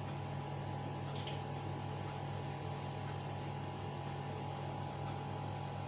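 Steady background hum and hiss with no change in level, with a faint light tap about a second in.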